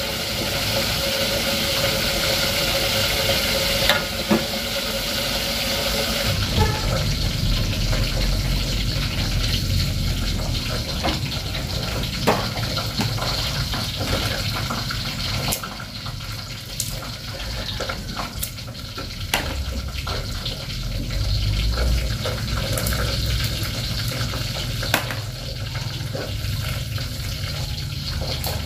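Hot oil sizzling in a wok for the first few seconds. Then a steady low rumble with small scattered clicks and rustles as shallots and garlic are peeled by hand and handled in a plastic basket.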